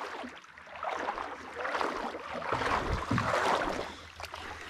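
Shallow water sloshing and splashing in uneven swells as someone wades and a landing net is drawn through it.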